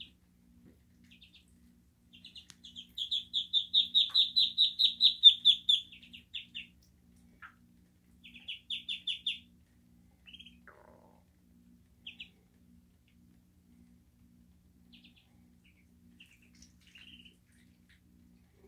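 Muscovy ducklings peeping: a fast run of loud, high peeps, about four a second, starting about two seconds in and lasting about four seconds, then a shorter run, then scattered single peeps.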